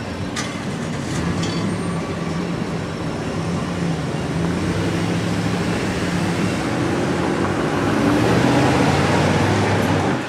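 Steady low drone of the Dorothy Ann/Pathfinder tug-barge's diesel engines at work, with a rush of noise over it, growing louder about eight seconds in.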